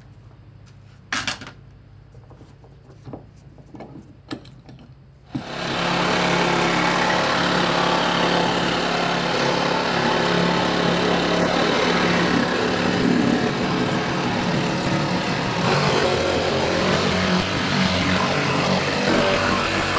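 A few light knocks, then about five seconds in a motor starts abruptly and runs steadily and loudly, a dense noisy whirr over a constant low hum.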